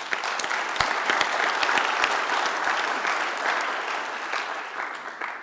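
Audience clapping, a dense patter of many hands that holds steady and then tapers off near the end.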